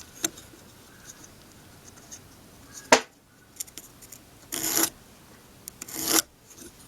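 Pencil marking lines across a poplar wood block: two scratchy strokes of about half a second each near the end, with a sharp knock about three seconds in.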